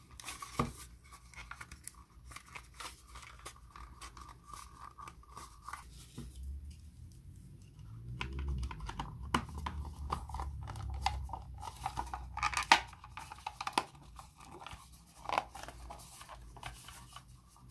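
Hard plastic model-kit parts being handled and fitted together in the hands: a run of small clicks, scrapes and rubbing, with a low rumble of handling about halfway through.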